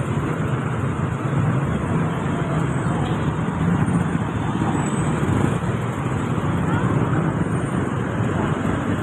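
Steady road traffic noise from cars in a flooded street: a continuous low rumble with an even hiss over it.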